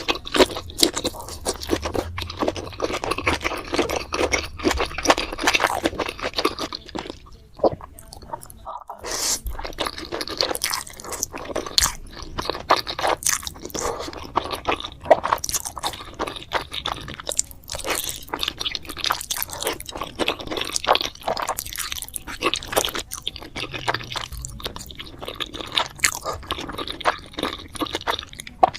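Close-miked eating: a person chewing and crunching pieces of spicy braised pork head, with many quick, irregular crunches and wet chewing. The sound breaks off briefly about eight seconds in, then carries on.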